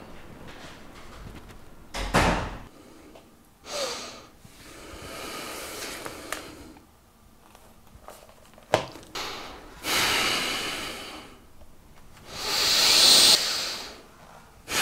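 A door shutting about two seconds in, then a man's heavy breaths and sighs, the longest and loudest near the end.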